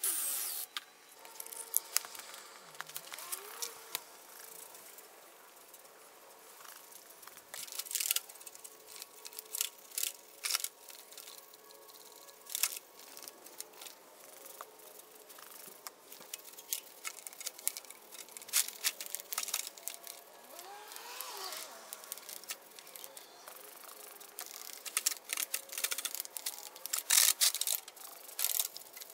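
Hand scrubbing of a small engine block with a stiff brush: irregular scratchy strokes and scattered clicks, busiest near the end.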